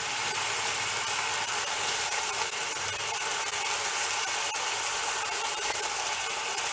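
Tender tamarind leaves sizzling in oil and a little water in a nonstick kadai, with a spatula stirring and scraping them against the pan.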